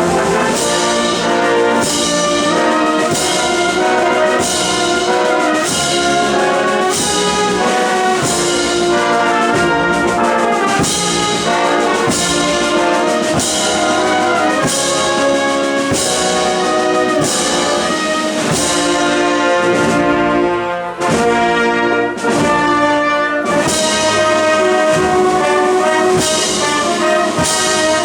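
Spanish wind band (banda de música) with trumpets and trombones playing a Holy Week procession march, with a steady beat about once a second and a brief break about two-thirds of the way through.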